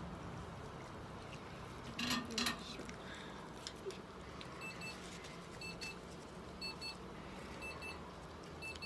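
Short double electronic beeps repeating about once a second through the second half, over a faint steady hum, with a brief rustle about two seconds in.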